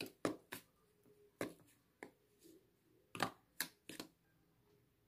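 A metal spoon clinking and scraping against a stainless steel bowl while stirring dry flour. There are about eight sharp, irregular clicks, and they stop about four seconds in.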